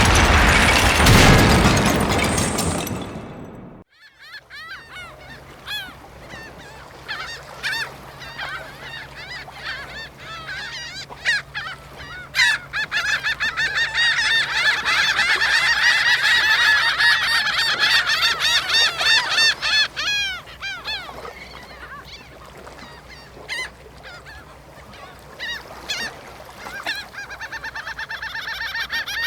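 A flock of geese honking, many overlapping calls that swell and grow loudest in the middle, then thin out. Before them, a loud rushing blast fills the first four seconds and cuts off abruptly.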